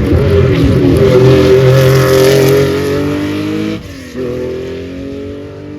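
Rally car engine accelerating hard past the roadside, its pitch climbing and at its loudest in the first half, with a gear change about four seconds in before it pulls up through the revs again.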